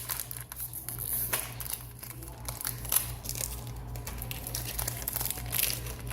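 Foil wrapper of a Pokémon trading-card booster pack crinkling irregularly as it is handled and opened.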